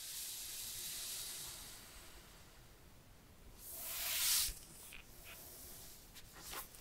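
Gloved hands handling a cardboard phone box. A steady hiss fades after about two seconds, then a rising rustling swish about four seconds in stops abruptly, followed by a few light taps and clicks of fingers on the box.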